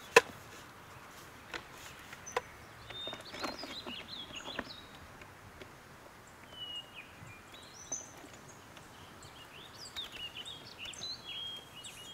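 Small birds chirping and calling in woodland: many short chirps and quick up-and-down whistles. In the first five seconds there are a few sharp clicks and knocks from hands working the knobs and standards of a wooden view camera on a tripod.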